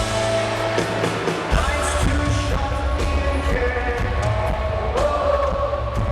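Live rock band playing, with a heavy bass and drum beat coming in about a second and a half in under sustained guitar and keyboard tones.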